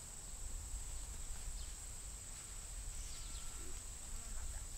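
Field insects droning steadily on one high, unbroken note, with a faint low rumble beneath.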